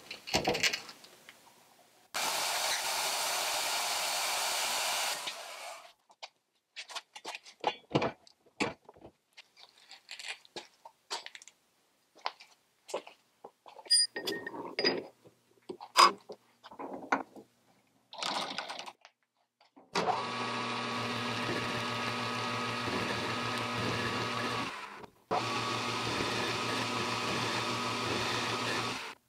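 Portable band saw running for a few seconds, cutting off a length of carbon steel bar stock. Then a run of scattered clinks and knocks as the bar is set into the lathe's three-jaw chuck. Then the Grizzly G0750G metal lathe runs steadily with a motor hum while facing the end of the steel bar, stopping briefly about three-quarters of the way through.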